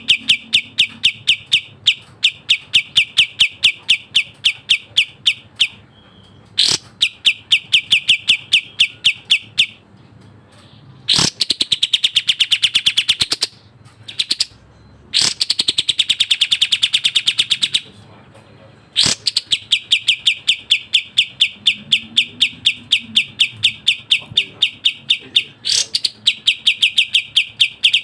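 Kapas tembak bulbul singing fast, tightly packed song: long rapid strings of sharp repeated notes, about seven a second, broken by short pauses, with two denser, more warbled phrases in the middle.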